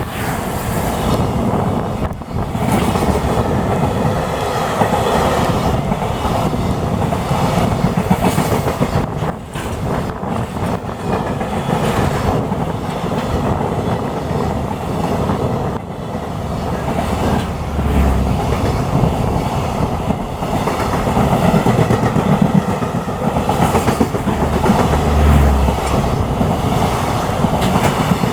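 Freight train behind an EF210 electric locomotive running through a station: a long, steady rumble of freight wagons rolling past, with the clickety-clack of wheels over rail joints.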